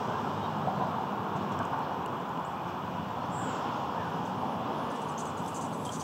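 Steady background noise of distant road traffic, even and unbroken, with one short high chirp about halfway through.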